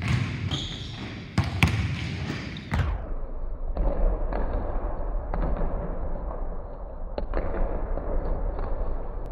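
Basketballs bouncing on a hardwood gym floor: irregular single thuds, roughly one every second or so, over a steady low background noise.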